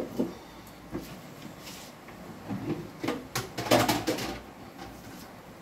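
Several sharp knocks and clatters, one right at the start and a quick cluster about three to four seconds in.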